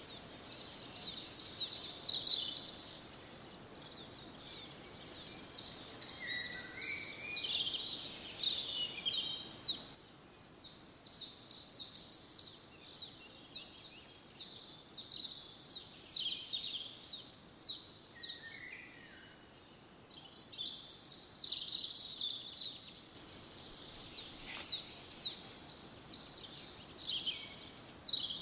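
Birds singing and chirping in rapid, high, repeated phrases that come in bursts of a few seconds with short gaps, over a faint steady outdoor background.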